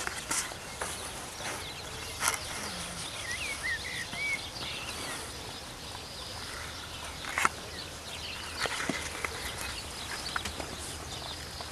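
Quiet outdoor ambience with a faint steady hiss, a few short high chirps about three to four seconds in, and occasional sharp clicks.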